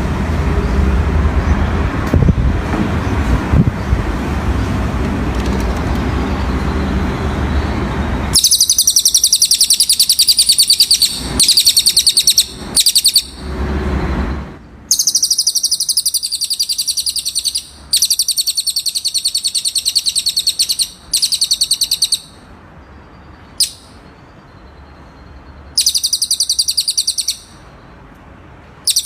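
A cililin songbird singing repeated bursts of very rapid, high trills, each phrase lasting up to about three seconds with short pauses between. For roughly the first third, a steady rumbling noise like passing traffic or wind fills the sound before the trills start.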